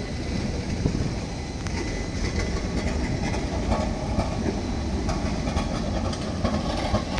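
Trams running past on street rails: a steady low noise of steel wheels on track, growing a little fuller about halfway through.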